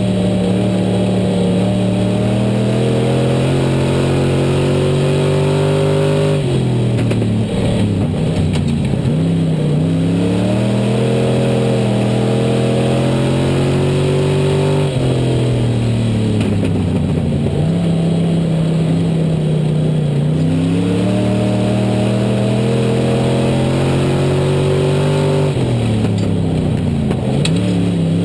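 IMCA Southern SportMod dirt-track race car's V8 engine heard on board at racing speed. It revs up steadily down each straight, then drops off sharply as the driver lifts into the turns, three times, before climbing again.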